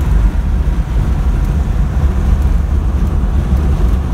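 Pickup truck's engine and exhaust running steadily at highway speed, a low rumble mixed with wind and road noise through the open window. The exhaust has no tip fitted.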